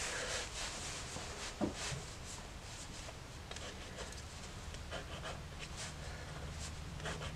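Faint scratching of a Derwent Graphik Line Painter pen's tip drawing short strokes on sketchbook paper, with a light tap about one and a half seconds in.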